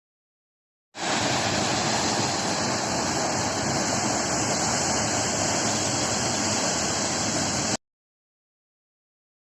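Steady rushing roar of a waterfall, starting about a second in and cutting off suddenly near the end.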